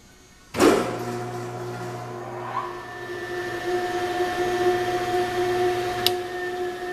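Esmach spiral dough mixer starting up about half a second in and running empty with a steady motor hum and whine. About six seconds in, a click from the control panel, after which the low hum drops out while the whine carries on.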